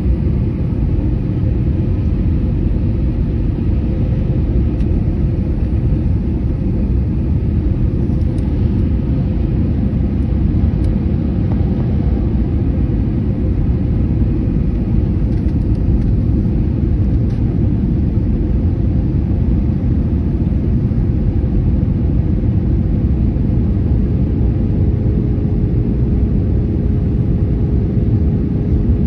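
Steady roar of an airliner cabin in flight: jet engine and airflow noise heard from inside, with a faint hum that dips slightly in pitch near the end.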